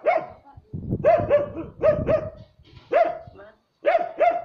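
A dog barking repeatedly, about ten short barks, mostly in quick runs of two or three.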